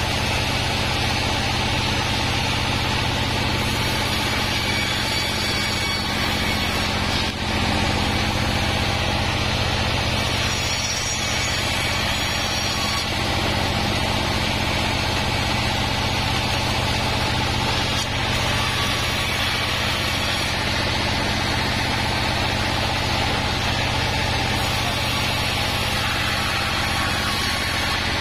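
Diesel-driven band sawmill running steadily while Wadang timber is fed through the band saw blade: an even, continuous machine drone.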